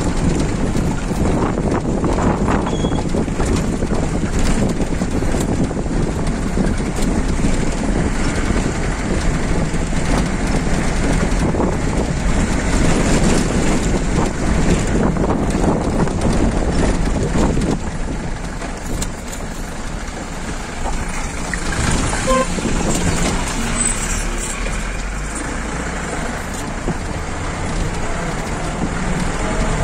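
Off-road vehicle's engine running as it drives over a rough gravel road, with knocks and rattles from the road, heard through an open side window. A little quieter for the last third.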